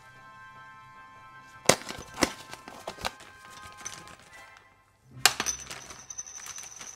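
A black foil blind bag being handled and opened by gloved hands, rustling and crinkling, with a few sharp clacks in the first half, over quiet background music.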